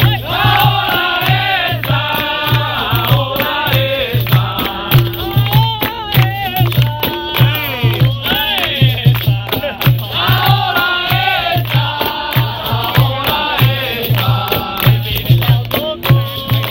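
Capoeira roda music: voices singing over a berimbau and hand percussion, with a steady, even drum beat and rattling strikes throughout.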